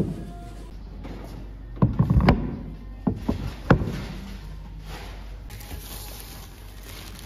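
Knocks and bumps in two short clusters, about two and three and a half seconds in, from handling the leather-hard clay cups and their wooden board. Near the end there is a soft rustle of plastic sheeting being pulled over the cups.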